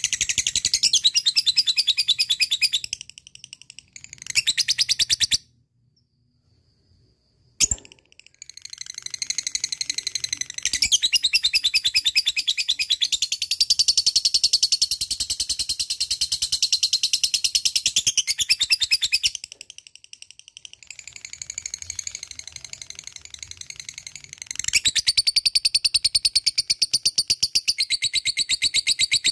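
Lovebird singing ngekek: long, very rapid, high-pitched chattering trills that run for several seconds at a time with short breaks. The trills stop for about two seconds a fifth of the way in, where a single sharp click is heard, and soften for a few seconds past the middle before picking up again.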